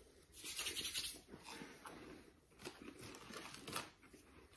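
Faint chewing of crunchy wafer cookies, in a few soft, irregular bursts.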